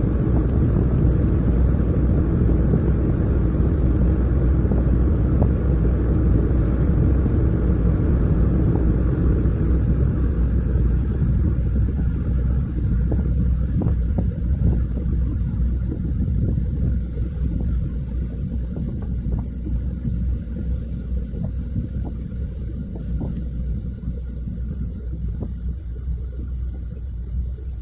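Strong wind buffeting the microphone: a loud, low rumble with crackling pops. It eases a little in the second half.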